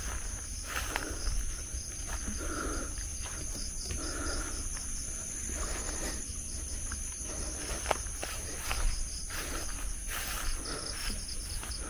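Night insects, crickets among them, trilling steadily at a high pitch, with a few scattered footsteps, rustles and clicks close by.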